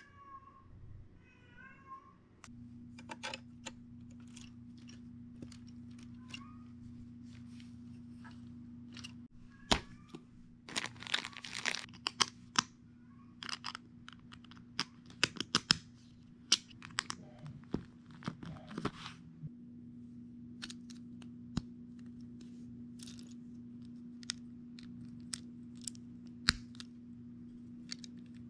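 Plastic LEGO bricks clicking and snapping together as pieces are handled and sorted, with a stretch of rummaging and rustling about ten seconds in. A cat meows briefly at the start, and a steady low hum comes in after a couple of seconds.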